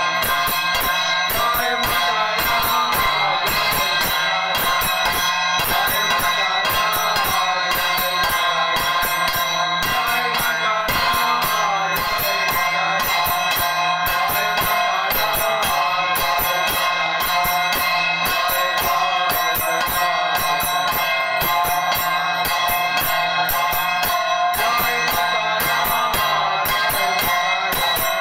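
A man singing a devotional aarti song into a microphone over fast, steady metallic rattling percussion with a continuous bright ringing.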